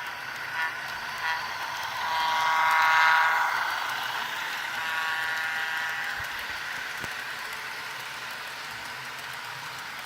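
Diesel locomotive air horn played by the Bachmann HO Alco S2 model's sound decoder through its small onboard speaker: a few blasts, the longest and loudest about two seconds in, another around five seconds in.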